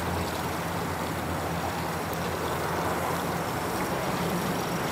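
An engine running steadily with a low hum.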